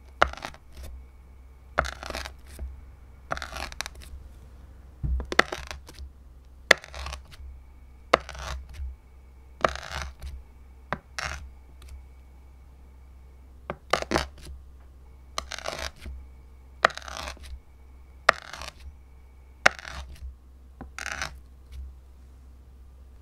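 A plastic scraper edge pressed down into a slab of green slime over and over, each press a short, sharp click that fades quickly, roughly once or twice a second, stopping shortly before the end.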